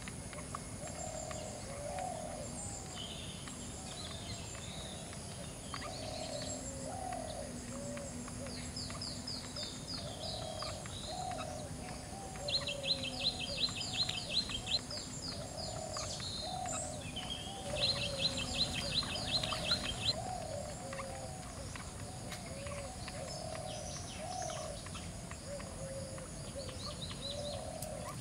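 Birds calling: a continuous run of short, low, repeated notes, with a fast high-pitched trill of about two seconds heard twice, near the middle and again later, which is the loudest sound.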